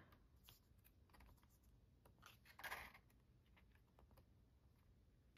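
Near silence with faint paper handling: a few soft ticks and one page of an album photobook turning, a soft swish about two and a half seconds in.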